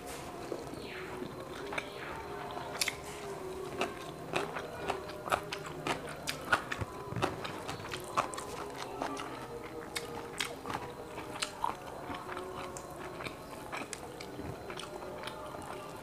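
Close-miked eating sounds: a person chewing and biting grilled quail eaten by hand, with many short sharp clicks and smacks of mouth and teeth throughout.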